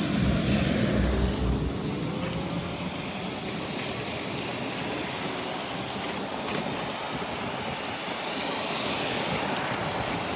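Steady road and wind noise of a vehicle on the move, with a deeper rumble in the first couple of seconds.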